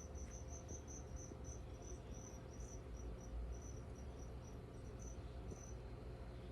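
A cricket chirping: a quick run of short, high chirps, about three a second, that slows and stops near the end, over a faint steady hum.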